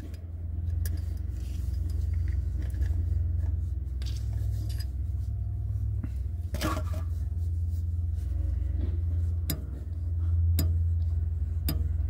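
A steady low rumble, with a few scattered small sharp clicks and taps.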